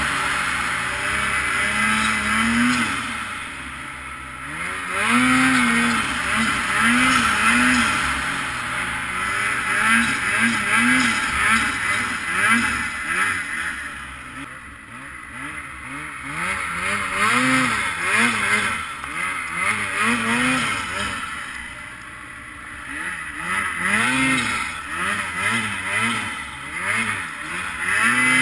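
Ski-Doo Freeride 850 two-stroke snowmobile engine revving up and down over and over as the throttle is worked through deep powder, over a steady rushing hiss of snow and wind. It eases off briefly three times, about four seconds in, around the middle and about two-thirds of the way through.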